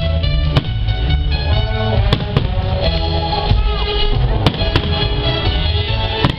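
Fireworks show: loud music with sustained instrumental tones, with about five sharp firework bangs going off over it.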